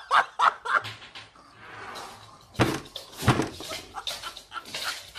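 Two heavy thuds about half a second apart near the middle, amid a person's stifled laughter.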